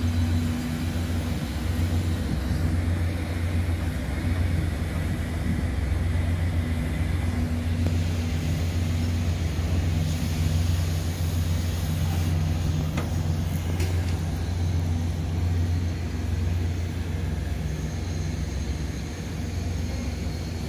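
Steady low drone of a ship's engines running, a deep hum with a couple of steady tones above it, heard from on board.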